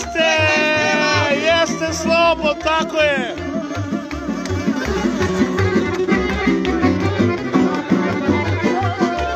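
Lively folk dance music with a steady beat and bass line. An ornamented lead melody with pitch bends runs over the beat and slides steeply down about three seconds in.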